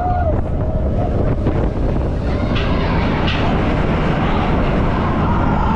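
Heavy wind buffeting the microphone as a loud, steady low rumble, with a few faint tones drifting above it.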